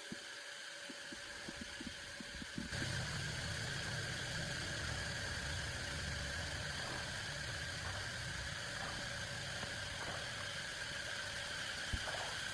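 A few faint clicks, then a motor starts about three seconds in and runs steadily with a low hum and a hiss.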